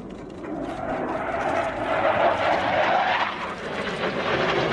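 Panavia Tornado jet's twin RB199 turbofan engines, a broad roar that builds as the aircraft approaches and is loudest about two to three seconds in.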